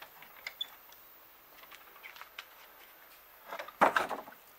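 A wooden shed door being handled: a short scraping clatter with a sharp knock about three and a half seconds in, after a few faint clicks.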